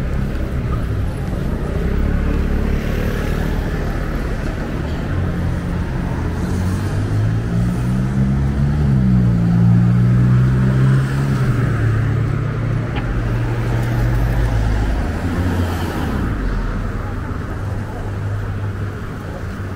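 City street traffic: a motor vehicle's engine humming close by, growing loudest about halfway through and then fading, over steady road noise.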